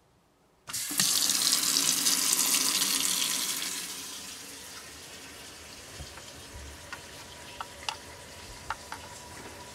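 Kitchen faucet turned on about a second in, water running hard into the sink. From about four seconds the rush settles to a quieter, steady flow with scattered small drips and clicks, heard from under the sink as the water drains.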